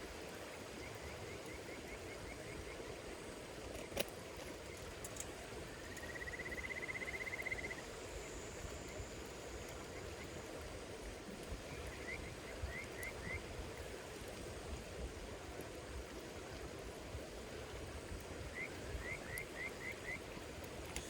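Campfire crackling with a steady hiss and one sharp pop about four seconds in, while insects call. One gives a rapid trill lasting under two seconds, and others give short runs of about five quick chirps, twice.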